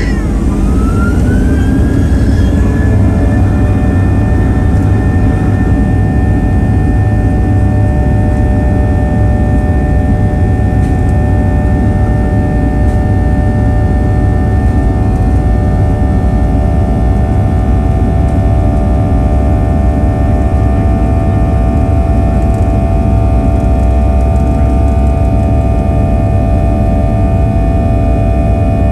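Boeing 737-800's CFM56-7B turbofan engines heard from inside the cabin, spooling up to takeoff thrust. A whine rises in pitch over the first few seconds, then holds steady over a loud rumble through the takeoff roll.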